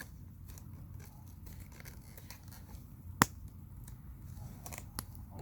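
Wood fire crackling, with scattered small pops over a low steady rumble, one sharp loud pop about three seconds in and a smaller one near the end.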